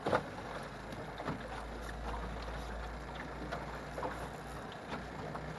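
Wind buffeting the microphone over choppy water slapping against a small aluminium jon boat, with a few short knocks, the loudest just after the start.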